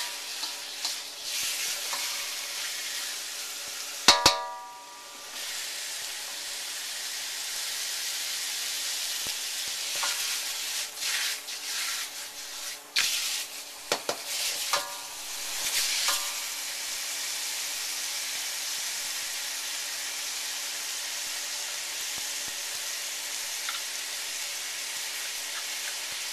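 Pork rib tips with garlic and black beans sizzling in hot oil in a wok as they are stirred and turned with a spatula. About four seconds in comes one loud ringing metallic clang, a cluster of scrapes and knocks follows around the middle, and the rest is a steady sizzle.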